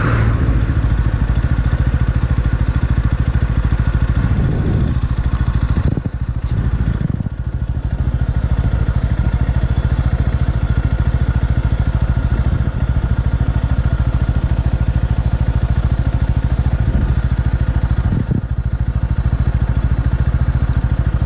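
Motron Revolver 125 motorcycle's 125 cc engine running steadily with an even pulsing note. The sound dips briefly twice, about six seconds in and again about eighteen seconds in, as if the throttle eases off.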